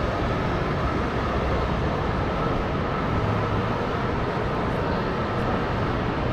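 Steady city street din, mostly traffic noise, with no single sound standing out.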